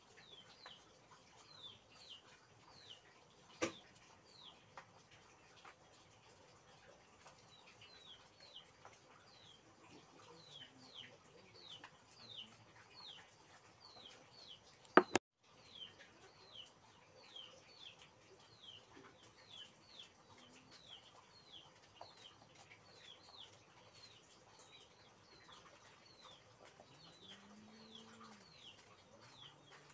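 A bird chirping over and over in short falling notes, about two a second. A sharp click comes about four seconds in, and a louder click comes about halfway, followed by a brief dropout.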